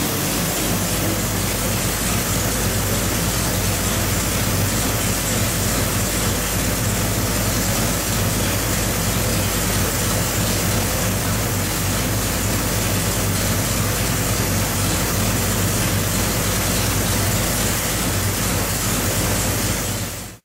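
572 cubic inch big-block Chevrolet V8 running on an engine dyno at a steady speed, a constant low drone under a loud rushing noise with no revving. It fades out at the very end.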